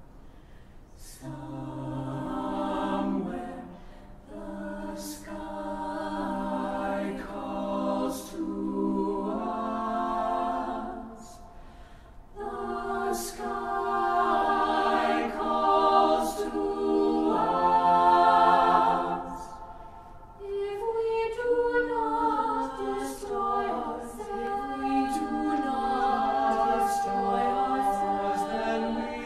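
Choir singing a slow choral piece in long held phrases that swell and fall back, with brief lulls between them.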